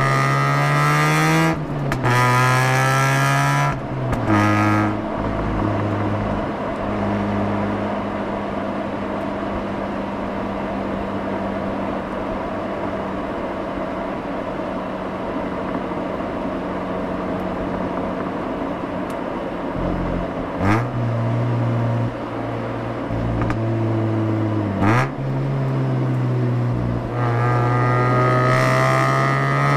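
Mazda RX-8's two-rotor rotary engine heard at the exhaust: it revs up through a gear change at the start, then settles into a steady cruise for most of the time. There are two brief, sharp rises in revs about two-thirds of the way through, and near the end it pulls hard again, rising in pitch.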